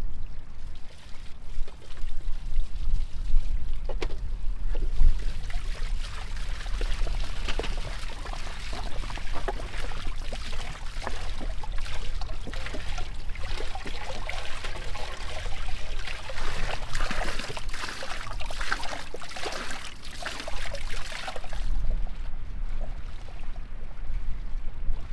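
Water running from a stone spring into metal bowls, pouring and splashing irregularly as food is rinsed by hand. The water sound stops about four seconds before the end, leaving a low rumble like wind on the microphone.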